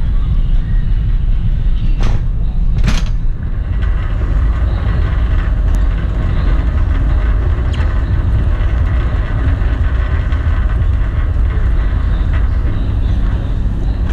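Wire shopping trolley's wheels rolling over a hard supermarket floor: a steady low rumble, heard from on the trolley itself. Two short sharp noises sound about two and three seconds in.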